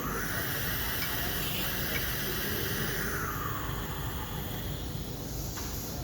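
5-axis CNC router running, a steady hissing machining noise whose pitch drifts up and back down over the first few seconds as the head moves and cuts.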